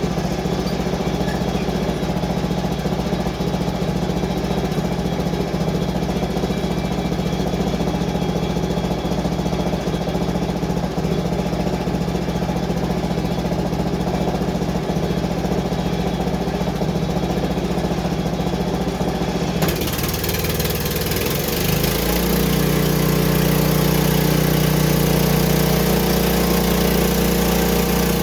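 Small gasoline engine of a portable sawmill running steadily. About twenty seconds in, a hiss sets in suddenly, and soon after the engine note changes and grows a little louder.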